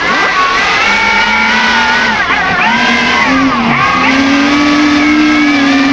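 Electric motors and propellers of a large RC Me 262 model running up on the ground, their pitch dipping twice and recovering as the throttle is worked, then holding steady.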